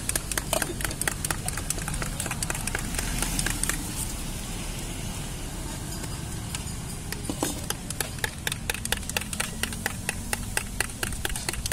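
Metal spoon stirring fast in a glass, clinking against its side many times a second. The clinking stops for about four seconds in the middle while the spoon scoops condensed milk from a tin can, with a single clink near the end of that pause, then the rapid stirring resumes. A steady low hum runs underneath.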